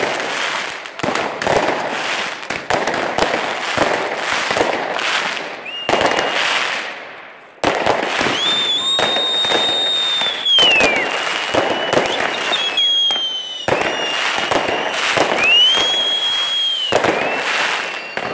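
Firecrackers and fireworks going off in quick succession: dense bangs and crackling. From about six seconds in, several whistling fireworks sound in turn, each a high steady whistle lasting one to two seconds.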